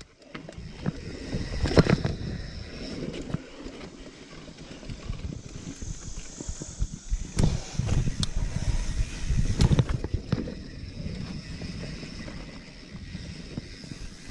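Niner Jet carbon mountain bike rolling along a dirt singletrack trail: a steady low rumble of tyres and frame over the ground. Scattered knocks and rattles come as it hits bumps, the loudest about two, seven and a half and ten seconds in.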